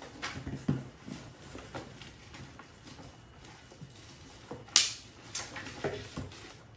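Packaging being handled in a cardboard box: scattered rustles, light knocks and clicks, with one sharp snap a little under five seconds in.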